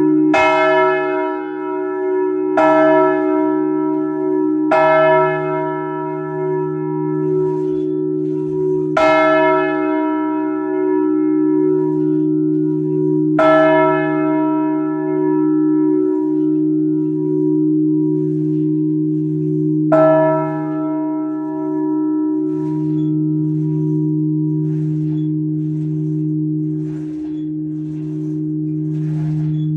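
Swinging bronze church bells of a full peal heard from inside the belfry. About six clapper strikes ring out and fade, growing further apart from about two seconds to about six, with the last one about twenty seconds in. The deep hum of the larger bells goes on underneath with a slow pulsing, and the peal is winding down.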